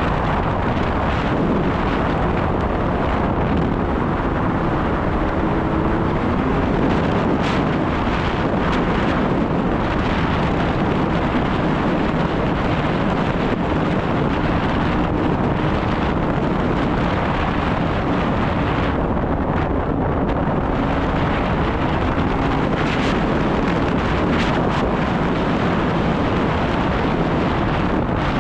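Snowmobile engine running steadily under way, its pitch drifting slightly up and down, with wind buffeting the microphone.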